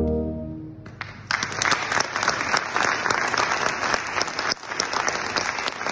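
The last held chord of a brass band fades out, and about a second in an audience bursts into sustained applause, many hands clapping.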